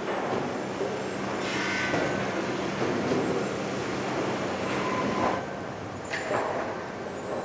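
Sawmill chain conveyors carrying boards: a steady clattering rattle over a low machinery hum, with a few louder metallic clanks and short squeals.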